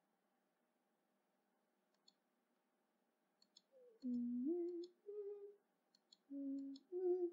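A person humming a short tune in held, stepping notes, starting about four seconds in, over soft computer mouse clicks that come in pairs from about two seconds in.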